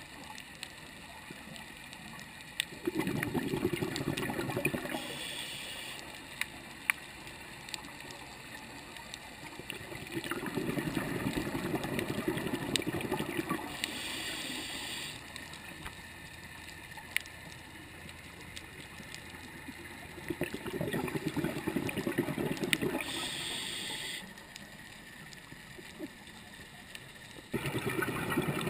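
Scuba diver breathing through a regulator underwater: exhaled bubbles rush and gurgle four times, roughly every eight to ten seconds, with a short hiss between them, over faint scattered clicks.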